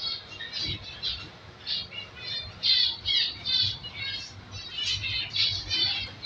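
Zebra finch chicks calling from inside the nest box, a rapid run of short calls, several a second, some overlapping.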